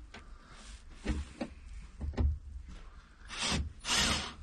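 A few faint knocks of handling, then, about three seconds in, a cordless drill-driver runs in two short bursts, driving screws to fasten the wooden table in place.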